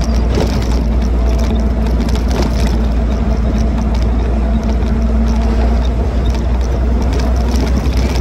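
Replica World War II jeep's engine running steadily on the move, with heavy low wind rumble on the microphone and light rattles from the open body.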